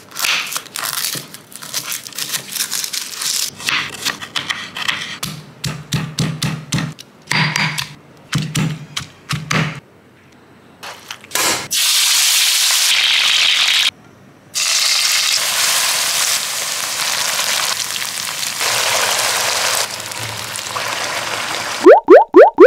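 A knife cutting on a wooden cutting board, a run of short knocks. Then comes the steady sizzle of chicken frying in hot oil in a wok, with a brief break partway through. Near the end a few very loud rising sweeps sound.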